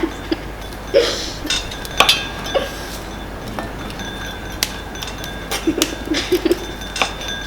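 Spoons clinking and tapping against a bowl in irregular knocks while mixing, a few of the strikes leaving a short ring.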